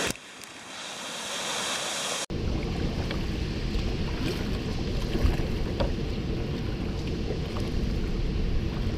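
About two seconds of rushing water from falls, which cuts off suddenly. After that, a canoe moving over lake water: low wind rumble on the microphone and water washing along the hull, with a few faint knocks.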